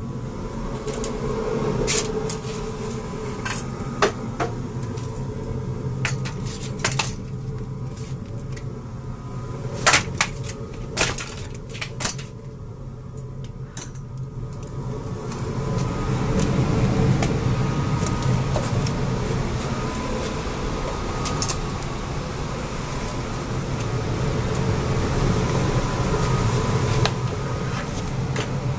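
Sharp knocks and clatter of hard objects being handled. About halfway a steady machine hum with a low drone starts up, like a fan or blower running, and carries on.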